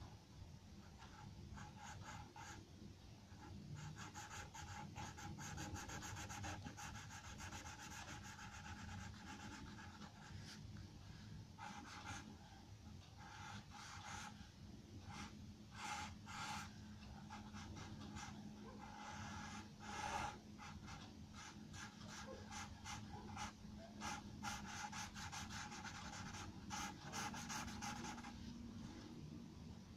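Charcoal pencil scratching and rubbing on drawing paper in runs of short, quick strokes, faint throughout.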